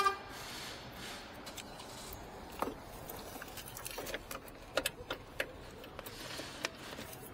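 Battery hold-down being fitted at the base of a car battery: scattered light clicks and clinks of the bracket being handled, with a quick cluster of them about five seconds in.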